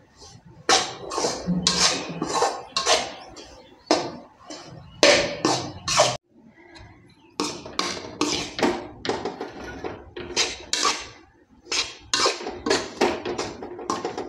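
A steel spoon stirs and scrapes roasting besan and ghee around an aluminium kadai in quick repeated strokes, about two a second, with a short pause about six seconds in.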